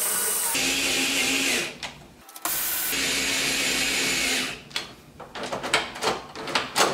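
Cordless power drill driving the screws of a door knob set, in two runs with a short stop between them. It is followed by a quick series of clicks and knocks from the knob and latch being handled.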